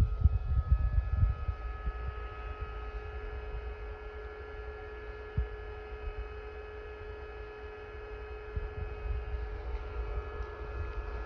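Steady electrical hum with a few fixed tones from a powered-on Epson L1800 DTF printer waiting before a head cleaning, with low rumbling thumps in the first second or so.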